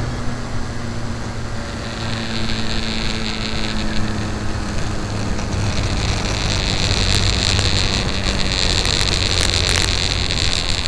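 Radio-controlled model aircraft in flight, its motor droning steadily with a low pitch that sinks slowly; a higher whine comes in about two seconds in and grows louder toward the end.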